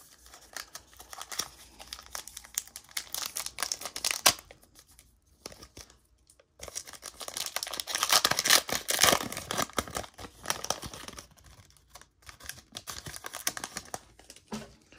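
Foil wrapper of an NBA Hoops trading card pack crinkling and tearing as it is pulled open by hand. The crackling is loudest in the second half, after a short pause about five seconds in.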